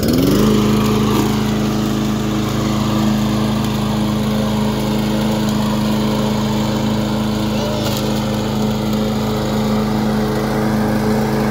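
Craftsman M260 walk-behind lawn mower engine just started on the pull cord, rising to speed in the first half second and then running steadily.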